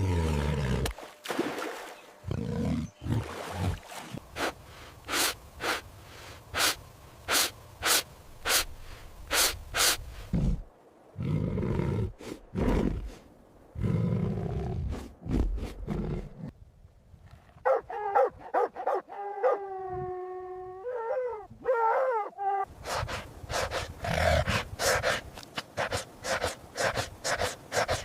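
Dog barking in quick runs of short sharp barks, with stretches of low growling and, in the middle, a long wavering whine or howl.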